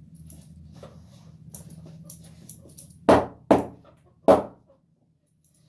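Barber's hands slapping the head during an Indian head oil massage: soft rubbing and light pats, then three loud sharp slaps, two close together about three seconds in and a third about a second later.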